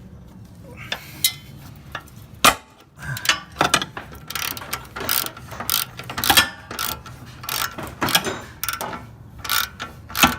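Socket ratchet wrench clicking in short, irregular strokes as bolts are worked loose on the underbody shield over a car's driveshaft.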